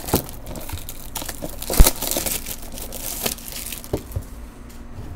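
Hands crinkling and tearing the packaging of a retail blaster box of baseball cards, with irregular sharp crackles and clicks, the loudest a crack about two seconds in.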